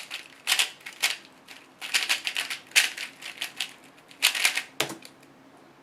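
Rubik's Cube being turned by hand, its plastic layers clacking in quick irregular bursts of turns that stop about five seconds in.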